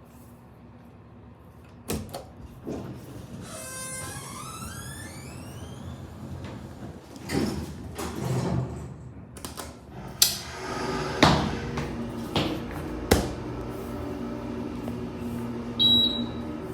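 Elevator running through its cycle: a pitched chime with rising tones about four seconds in, the doors sliding a few seconds later, then several sharp clunks over a steady hum, and a short high beep near the end.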